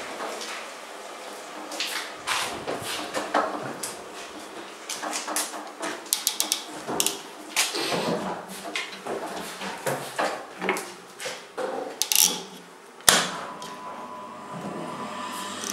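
Wooden honeycomb frames knocking and clattering against the metal wire baskets and drum of a stainless steel radial honey extractor as they are loaded, in irregular knocks with one sharp bang about 13 seconds in.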